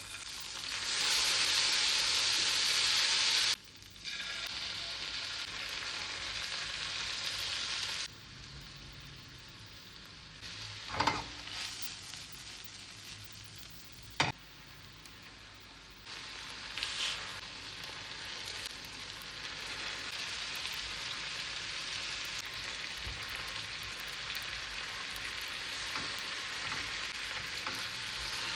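Food frying in a hot pan: a steady sizzle, loudest in the first few seconds, that falls and rises abruptly a few times, with two sharp knocks near the middle.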